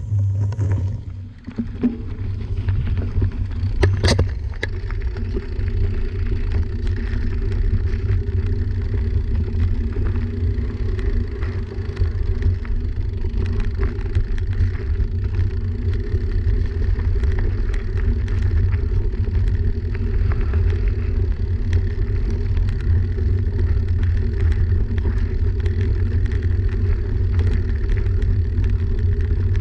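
Mountain bike rolling along a dirt and gravel trail: a steady low rumble of wind on a handlebar-mounted action camera's microphone, with knobby-tyre crunch and small rattles and clicks from the bike. There is a sharp click about four seconds in.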